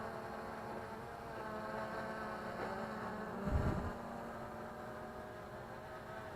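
MJX Bugs 3 quadcopter's brushless motors spinning slowly with a steady, fairly quiet hum of several tones. A brief low thump comes about three and a half seconds in.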